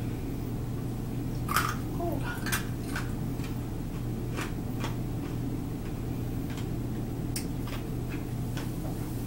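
Potato chips crunching as they are chewed: irregular short, crisp crackles, the loudest about a second and a half in, over a steady low hum.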